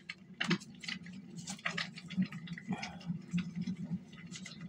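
Tarot cards being shuffled by hand: a run of light, irregular card snaps and taps over a faint steady low hum.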